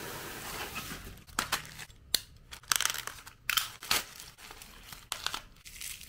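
Plastic packaging handled and unwrapped by hand: plastic courier mailers and wrapping crinkling and tearing. A rustle through the first second gives way to a string of short, sharp crackles.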